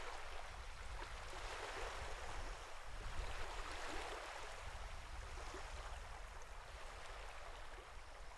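Sea water washing and lapping: a steady rush of water over a low rumble, swelling up around the middle and easing off toward the end.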